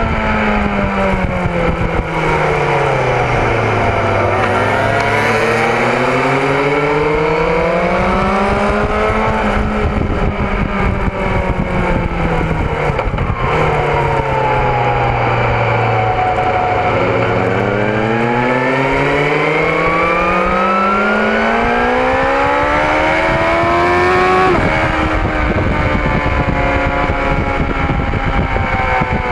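BMW S1000RR's inline-four engine heard on board at track speed over wind rush. The revs fall and climb again twice as the bike slows for corners and drives out of them, with a sudden drop in pitch near the end.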